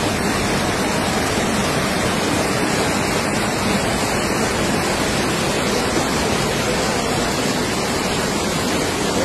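Muddy floodwater rushing down a street as a fast torrent, pouring over a low barrier; a steady, loud, unbroken roar of water.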